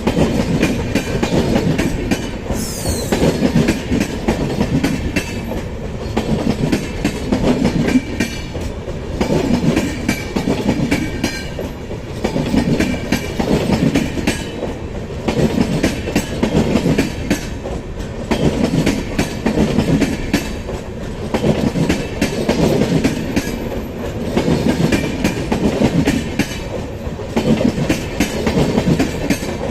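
Passenger coaches of an express train running past at speed, their wheels clattering over rail joints and points in a steady repeating rhythm as the train crosses onto another track. A brief high falling squeal comes about three seconds in.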